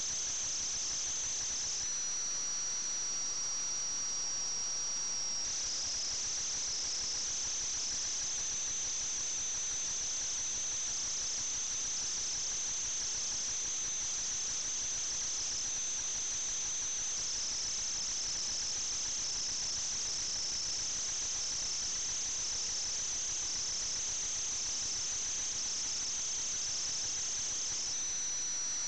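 Steady high-pitched whine over constant hiss, with the pitch stepping slightly a few times, typical of an RC plane's electric motor heard through the onboard FPV audio link as the throttle changes.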